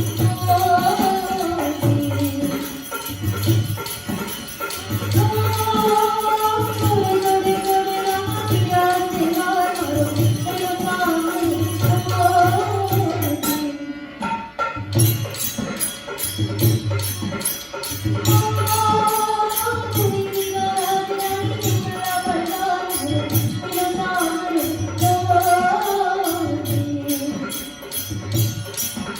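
Rajasthani folk music: a voice sings a wavering melody over a steady drum beat and jingling percussion, with a short break about halfway through.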